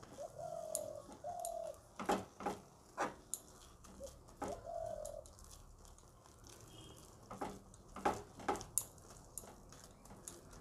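A metal spoon scraping and knocking against a nonstick frying pan as flour is stirred into hot milk to make a thick dough, in two clusters of knocks. Three short, steady low calls of a bird cooing sound in the background, two early on and one about halfway through.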